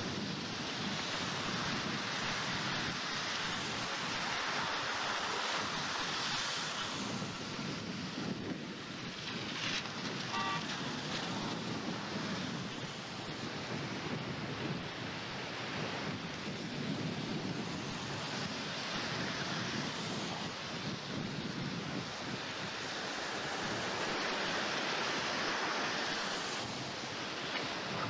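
Strong wind rushing over the microphone in gusts, swelling and easing every few seconds, during a tornado.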